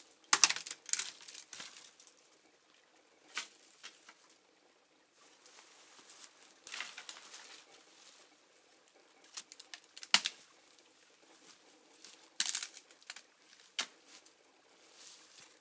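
Dry branches and twigs of leafless shrubs rustling and crackling as they are pulled and bent, with a few sharp snaps of dry wood breaking.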